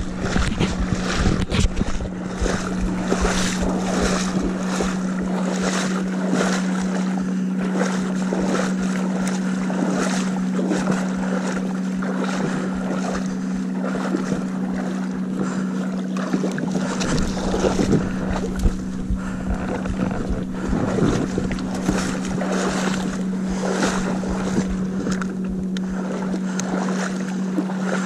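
A boat engine running at a steady speed, a constant hum, with wind buffeting the microphone and water splashing; the wind gusts harder about two-thirds of the way through.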